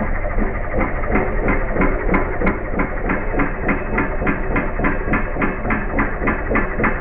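Borewell drilling rig at work, knocking rhythmically at about three sharp knocks a second over the steady running of the rig's engine and air compressor as the drill pipe bores into the ground.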